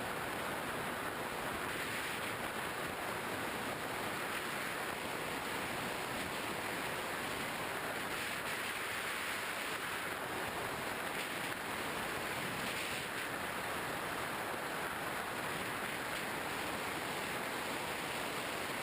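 Steady rushing wind noise over a GoPro Hero 2 camera carried on a flying Skywalker 1900mm model plane, an even hiss with no distinct motor tone.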